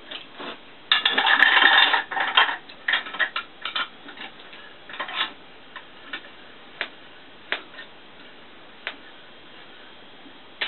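Metal clinks and rattles from the parts of a 250 mm lathe chuck being worked by hand to bring its gearing into mesh. A dense clatter starts about a second in, then thins to scattered single clicks that stop near the end.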